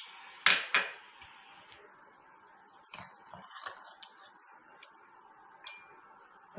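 A glass bowl knocks twice against a stone counter. Then come soft scraping and scattered clicks as ground licorice-root-and-milk paste is scooped by hand out of a stone mortar into the bowl, with a sharp glassy tap near the end.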